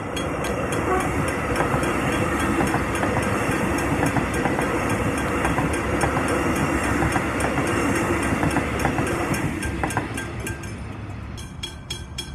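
An X'Trapolis electric suburban train passes over a level crossing: the train noise comes up about a second in, holds steady, and fades near the end as the train clears. Throughout, the level-crossing bells ring with quick, even strikes.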